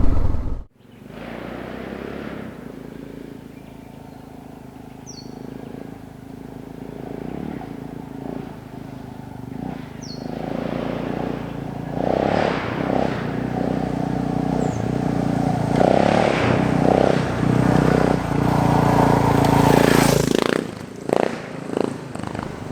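Suzuki DR650 motorcycle's single-cylinder engine running under way. It cuts out briefly at the start, then runs steadily, getting louder and rougher about halfway through before easing off near the end.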